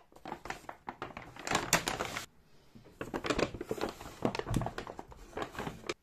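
Brown kraft-paper shopping bag rustling and crinkling as a hand rummages inside it, in two spells with a short pause a little past two seconds in.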